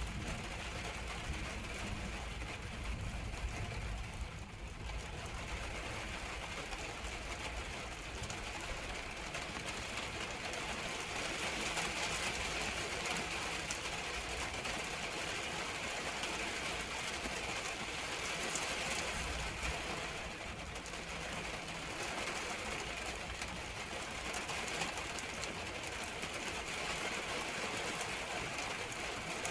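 Steady rain falling, an even hiss, with a low rumble coming and going underneath.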